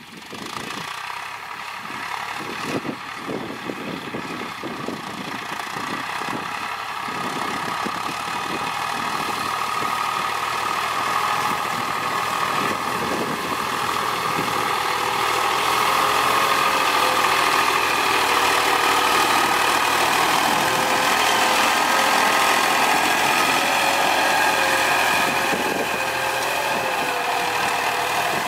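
Farm tractor's diesel engine running steadily as the tractor drags a disc plough through a muddy field, growing louder as it approaches over the first half and then holding level close by.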